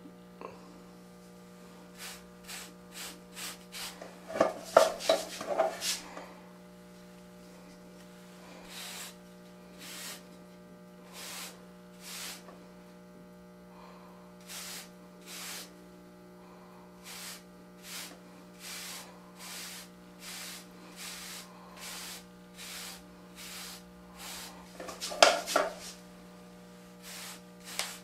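Bristle wave brush (Torino Pro) stroked through short hair to lay 360 waves, a series of short scratchy brushing strokes, a little faster than one a second, with bursts of louder, quicker rubbing about four seconds in and again near the end. A steady low hum runs underneath.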